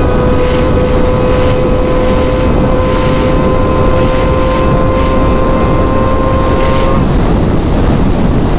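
Bored-up Kawasaki ZX-25R inline-four engine at high revs under hard acceleration, its high whine climbing slowly in one gear until it cuts off about seven seconds in. Heavy wind rush on the microphone at speed runs underneath.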